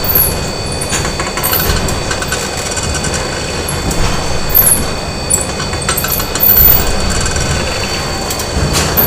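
Factory machinery ambience: a continuous low rumble with irregular metallic knocks and clanks, a few steady whining tones and brief high squeaks.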